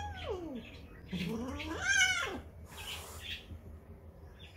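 Cat yowling: a falling call at the start, then a longer drawn-out yowl that rises and falls and is the loudest sound, about two seconds in, followed by a short hiss. The sound of a tense, defensive cat.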